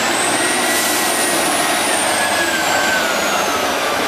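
Tatra 813 8x8 trial truck's diesel engine running hard under load in deep mud, with a high whine that rises to a peak and then slowly falls.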